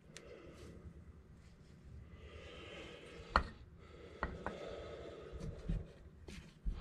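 Small chainsaw oil-pump parts being handled on a workbench: faint rubbing and scattered light clicks and knocks, the sharpest about three and a half seconds in.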